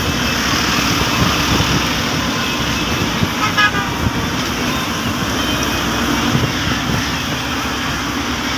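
Steady vehicle and traffic noise, with a short horn toot about three and a half seconds in.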